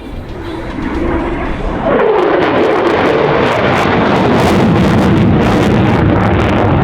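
RAAF F-35A jet fighter passing low. About two seconds in, its whine sweeps down in pitch as it goes by, then gives way to a loud jet roar with crackle that lasts to the end.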